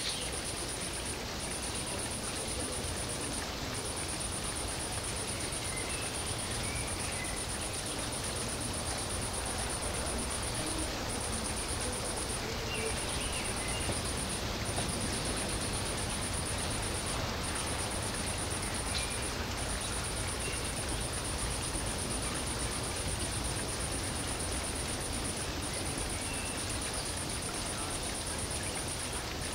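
Steady background noise with a continuous high-pitched hiss that drops out briefly now and then, and a few faint chirps.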